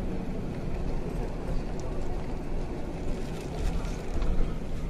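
Steady low rumble of a vehicle's engine and tyres, heard from inside the cabin while driving.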